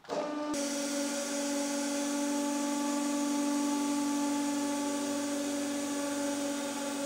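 A 150-ton hydraulic press's pump motor starts just after the beginning and runs with a steady hum, working under load as the ram compresses a stack of four paperback books.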